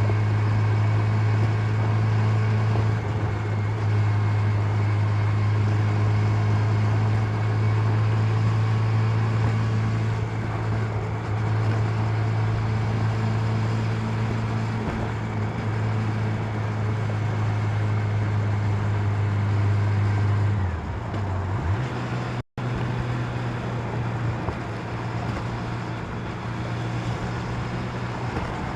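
An engine running steadily with a deep, even hum. About 21 seconds in it dips, breaks off briefly, then runs on at a slightly higher pitch before falling away near the end.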